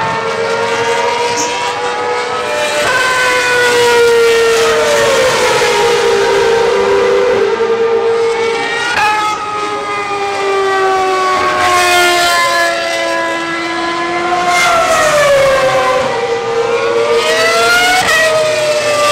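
Ferrari Formula 1 car's engine running at high revs on track, a high-pitched note whose pitch falls away and then jumps back up several times with the gear changes.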